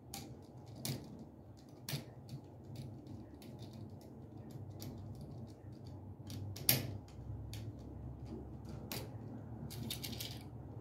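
Screwdriver working the terminal screws of a 15 amp duplex receptacle: scattered small metal clicks and scrapes, the sharpest a little under seven seconds in, over a faint low steady hum.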